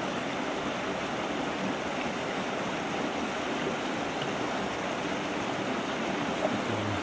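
Creek water running over rocks: a steady, even rush.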